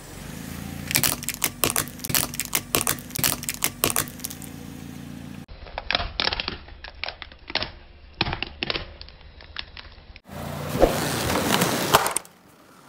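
Car tyre slowly rolling over small toy cars, crushing them: a long run of sharp cracks and snaps over the car's steady engine hum. Near the end a rushing noise with a couple of sharp snaps as the tyre presses onto a row of balloons.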